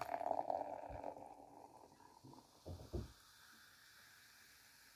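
Carbonated cola poured from a can into a glass, splashing and fizzing as foam rises. It fades out after about two seconds, with a couple of soft low thumps near three seconds in.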